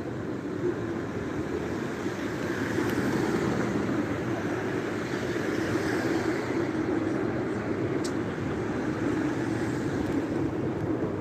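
Steady vehicle noise: a continuous low rumble with no distinct events.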